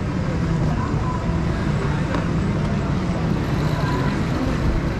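Racing kart engines running steadily in the pre-grid, a constant low engine drone.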